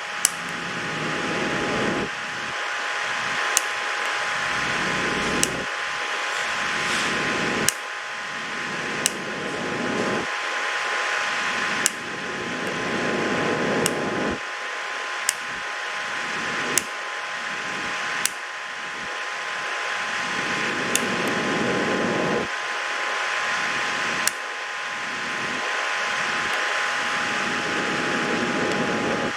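Steady fan-like whir with a faint steady tone, broken every second or two by a sharp click where the background level jumps abruptly.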